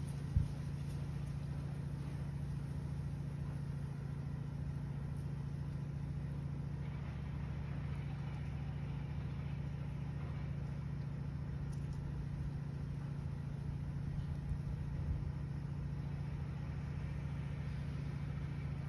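A motor vehicle engine idling steadily, a low even hum. One short knock about half a second in.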